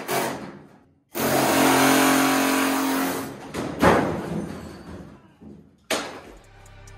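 Handheld pneumatic tool running for about two seconds on the bolts of a truck bed, a steady whine with hiss. A sharp knock follows a little later, and another comes near the end.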